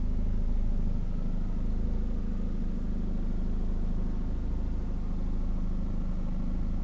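Boat motor running steadily at trolling speed, a low even drone.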